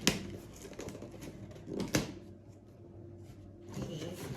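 A small cardboard box and its packaging being opened by hand: a string of light clicks and rustles, with two sharper knocks about two seconds apart.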